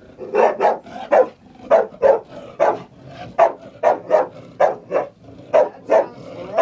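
A dog barking rapidly and repeatedly, two or three sharp barks a second: fearful alarm barking at a chair that scares her.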